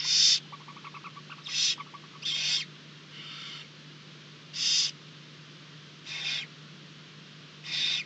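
Barn owl owlets giving short, harsh hissing begging calls, about seven in eight seconds, with a fast pitched ticking chitter in the first second or so. A faint steady hum runs underneath.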